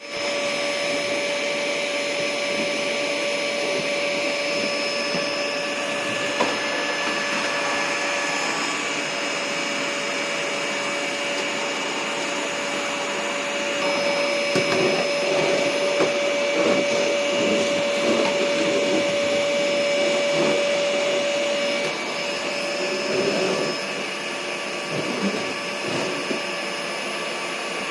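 Vacuum cleaner running with a steady motor whine. The sound turns rougher, more uneven and slightly louder between about 14 and 22 seconds in, and again a little after 23 seconds.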